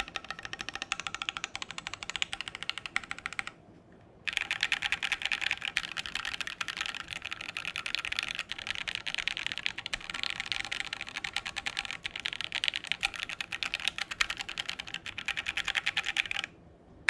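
Fast typing on a Keychron Q1 mechanical keyboard: a dense run of key clicks, with a brief pause about four seconds in.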